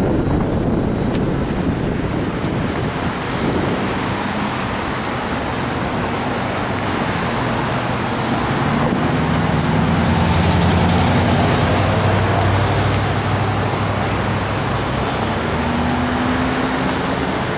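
Road traffic passing close by: a steady wash of tyre and engine noise, with one vehicle's engine loudest about ten seconds in and another engine note rising near the end.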